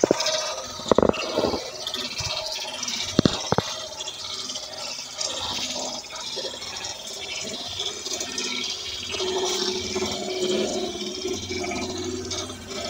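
Gas stove burner flame burning with a continuous rushing, hissing sound that rises and falls, and a few short knocks about a second in and at about three seconds.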